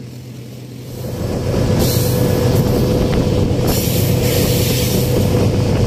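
Moving train: the diesel locomotive's engine drone and the rumble of wheels on the rails, growing louder about a second in and then running steadily.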